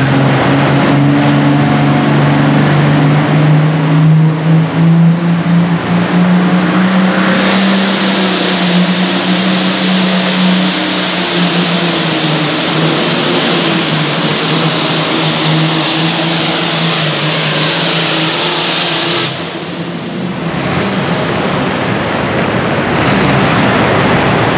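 Super Farm class diesel pulling tractor running flat out under load as it drags the weight sled. The engine note climbs over the first several seconds and then holds steady. The sound drops briefly about nineteen seconds in, then carries on.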